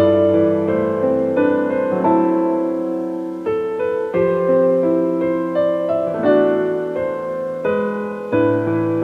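Background music: a gentle piano melody with soft chords, notes struck at an even, unhurried pace.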